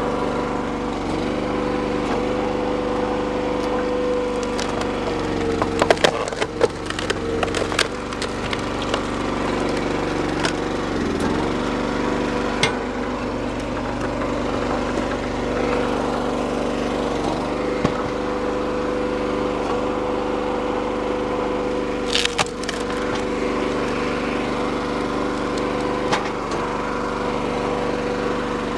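Engine-driven hydraulic log splitter running steadily, its engine note dipping briefly several times as the ram pushes rounds through the wedge. Pine rounds crack and splinter as they split, loudest about six seconds in and again about twenty-two seconds in.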